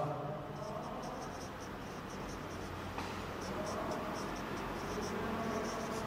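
Marker pen squeaking on a whiteboard as words are written: a run of quick, short strokes, about three or four a second, with a brief pause about halfway through.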